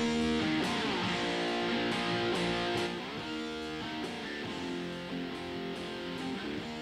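Electric guitar playing strummed chords on DAW playback, run through a software compressor set to a fast 5 ms attack and a slow 4-second release. The first few seconds are a little louder.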